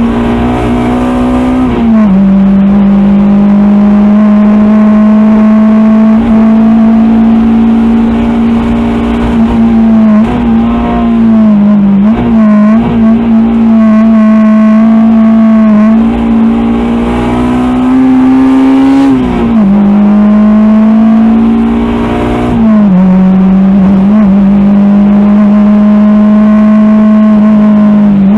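Modified Honda DC2's B18C2 four-cylinder engine with B16A2 head and TODA cams, heard from inside the cabin, running hard at high revs: its pitch climbs slowly and drops sharply at each upshift, about two seconds in and twice more after the two-thirds mark. In the middle it falls and wavers with short blips as the car slows for a bend.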